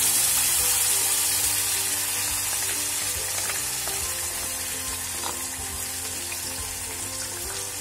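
Green paste sizzling and frying in hot oil in a kadai, the sizzle slowly dying down. Soft background music plays underneath.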